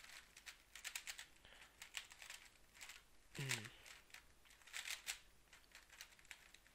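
GAN 356 X magnetic speedcube being turned quickly by hand: faint, rapid clicking and clacking of its plastic layers in short flurries. A brief voiced hum comes about halfway through.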